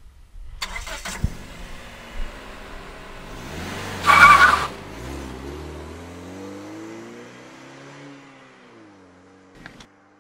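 A car engine rising in pitch and then falling away, with a loud, brief shrill squeal about four seconds in. There is a click shortly after the start and another near the end.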